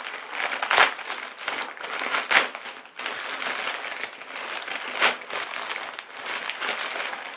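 Plastic parcel packaging crinkling and rustling as it is handled and opened, with a few louder sharp crackles.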